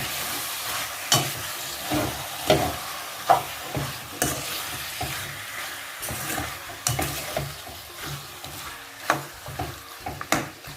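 Seasoned chicken pieces sizzling in hot oil in a wok while being stirred, the spoon scraping and knocking against the pan at irregular moments every second or so. The chicken has just gone in on top of fried onions and curry leaves and is being turned to coat it in the oil.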